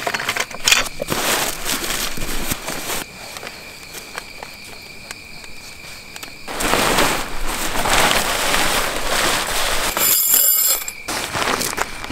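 Crinkling and rustling of a nylon tent bag and its fabric being handled, then of a paper instruction sheet being leafed through. A steady high insect chirr runs underneath through the first half.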